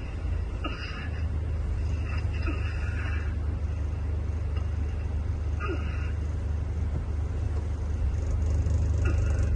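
Scania diesel engine of a Marcopolo Paradiso 1800 DD double-decker coach running under way, a steady low drone heard inside the coach, growing a little louder near the end.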